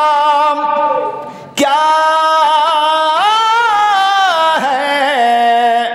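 A man's voice singing an Urdu couplet in drawn-out sung recitation, unaccompanied. He holds long notes on the end of a line. One phrase fades away about a second in, and the next begins after a short break, rising in pitch partway through and falling back near the end.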